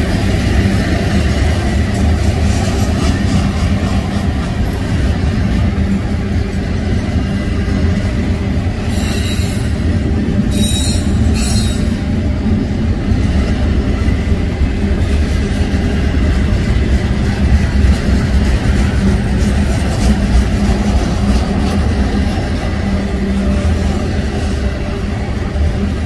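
Double-stack intermodal container train rolling past at close range: a steady, loud rumble of wheels on the rails. Three short high-pitched bursts come about nine to twelve seconds in.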